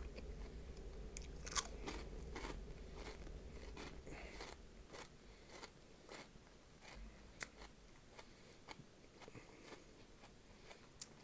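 A person chewing crunchy Flamin' Hot snacks close to the microphone: irregular sharp crunches and crackles with wet chewing between them, two crunches louder than the rest, about a second and a half in and about seven seconds in.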